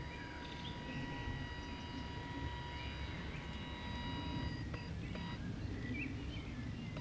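Outdoor ambience: a constant low rumble, a steady high whine holding several pitches that drops out for a moment about five seconds in, and a few short bird chirps.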